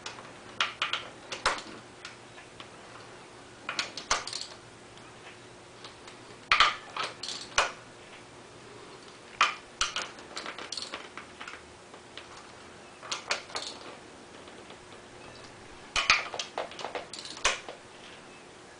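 Light metallic clicks and clinks in short clusters of a few strikes, coming every three seconds or so, from hand tools and small metal parts being handled.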